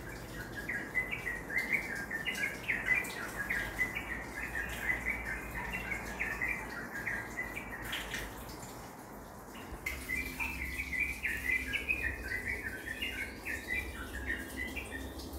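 A bird singing fast runs of short chirps in two long bouts, with a pause of about two seconds after the first, over a low steady rumble.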